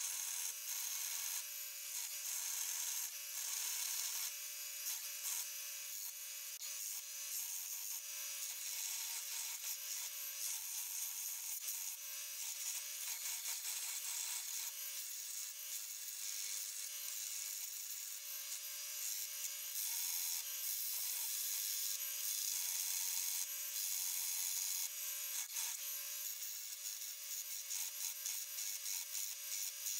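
Steel rounding hammer head being ground on a running bench belt sander: a steady rasping grind of metal against the abrasive belt, with a faint wavering tone underneath and the level rising and falling a little as the head is pressed and moved across the belt.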